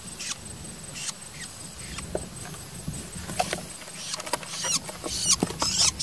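A hand-raised young long-tailed shrike (pentet) giving short, high squeaky calls, singly at first and more often near the end.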